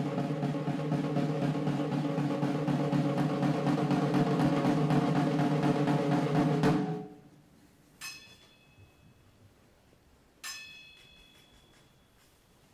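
Snare drum played in a sustained roll that stops abruptly about seven seconds in, followed by two single ringing metallic strikes, like a bell, a couple of seconds apart.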